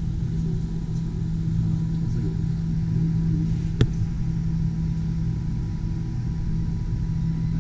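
Steady low mechanical hum inside an enclosed Ferris wheel gondola, with a single sharp click about halfway through.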